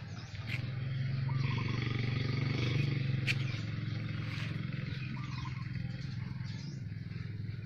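A steady low mechanical hum, like a motor running, with faint chirps above it and one sharp click about three seconds in.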